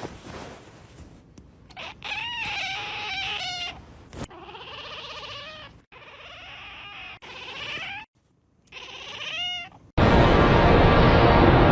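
Cat meowing repeatedly: about five long, drawn-out meows that rise and fall in pitch. About ten seconds in, loud music cuts in.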